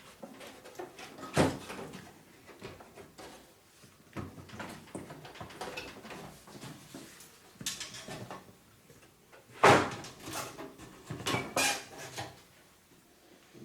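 Scattered knocks, scrapes and rubbing from hands working on a front-loading washing machine's door gasket and its fittings, with the loudest knock about ten seconds in.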